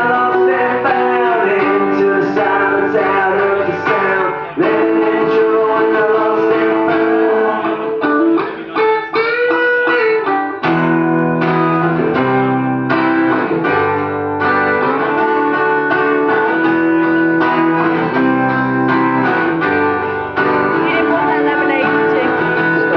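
Guitar-led band music with sustained chords and notes. About nine seconds in come bending pitch glides, and a deeper bass line joins just after.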